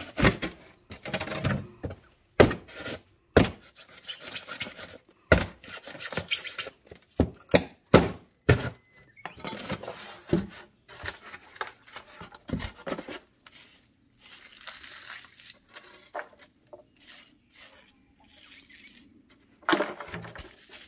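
A pointed metal tool jabbed again and again into a polystyrene foam box, punching holes through its bottom: an irregular run of sharp squeaky crunches and knocks of the foam. They thin out after about thirteen seconds, and there is a last cluster of handling knocks near the end.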